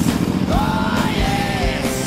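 Rock music with a steady drum beat and a held, bending melody line over it.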